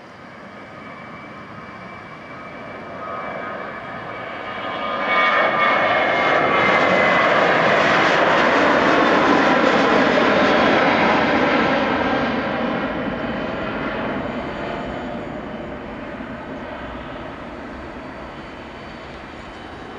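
Boeing 737-700's twin CFM56-7B turbofan engines at takeoff thrust as the jet lifts off and climbs past. The engine noise builds over about five seconds, peaks with a falling whine as the aircraft passes, then slowly fades as it climbs away.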